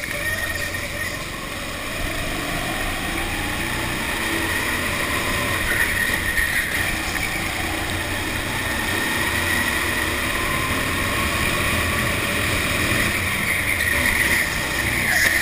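Go-kart engine running at speed with the onboard camera close to it, its pitch rising and falling as the kart accelerates out of corners and slows into them. A high-pitched whine swells and fades several times over it.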